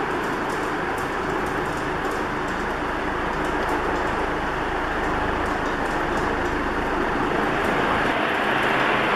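1980 4 Saisons Industriel 90 cm ceiling fan with four curved metal blades running on high speed, at roughly 360 to 380 RPM: a steady rush of moving air with a low hum underneath.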